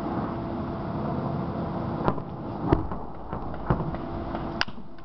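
Steady mechanical hum with a faint held tone, broken by a few sharp clicks and knocks, the sharpest near the end.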